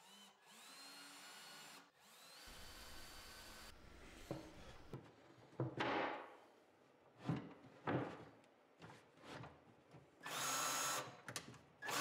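18-volt cordless drill driving screws in short runs, each spinning up with a rising whine. Two quiet runs in the first four seconds, a few knocks and clicks in the middle, then two louder runs near the end.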